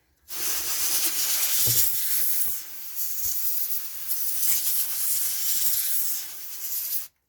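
Can of compressed air spraying in one long hiss that eases briefly about two and a half seconds in, then cuts off sharply near the end, with a few light knocks of handling underneath.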